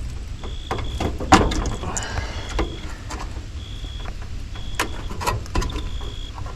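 Sharp clicks and knocks of a heat pump's defrost control board being worked off its plastic mounting tabs, the loudest about a second in. A steady low rumble runs under it, and a faint high-pitched tone sounds on and off.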